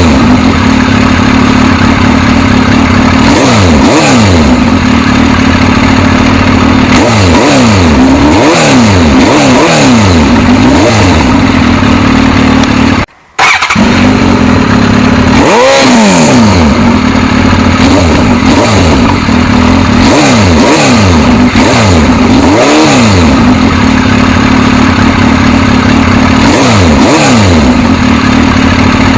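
Suzuki GSX-S1000's inline-four engine being revved again and again, the pitch rising and falling in repeated blips over a steady running note, with a brief cut to silence partway through.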